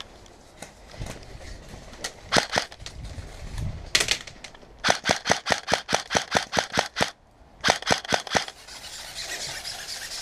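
Airsoft guns firing: a few single shots, then a rapid even string of about fourteen shots at roughly seven a second, then a short burst of three or four more. A couple of seconds of steady hiss follows near the end.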